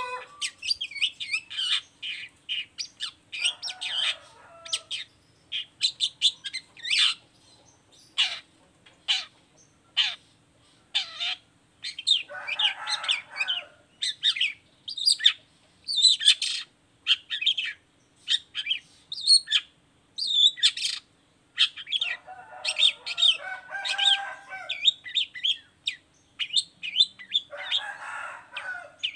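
Long-tailed shrike singing: a fast run of sharp chips and short whistled notes, broken four times by harsh, raspy chattering bursts.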